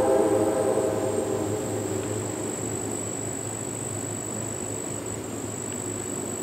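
A passing train's horn and rumble die away over about the first second, leaving the steady high drone of summer insects over a low, steady rumble.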